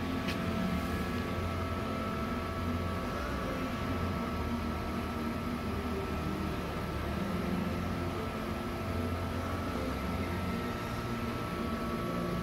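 Steady machine hum with a low rumble that swells and fades slightly, a few fixed whining tones and a constant hiss.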